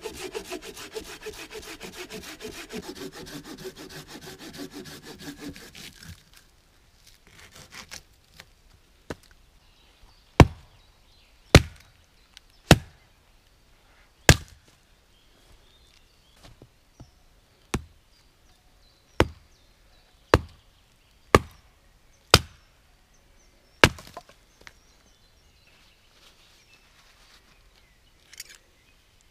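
Hand saw cutting through wood in quick back-and-forth strokes for about six seconds. Then an axe chopping firewood: about a dozen sharp single blows, roughly one a second, the loudest sounds here. A brief faint scrape comes near the end.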